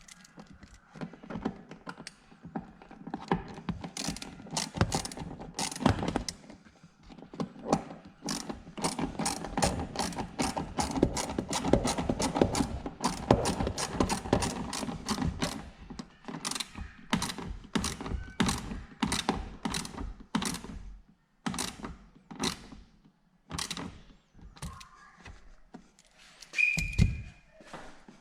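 Hand ratchet wrench clicking in runs of quick strokes, fastest and densest in the middle, then slower and more spaced. A short thump comes near the end.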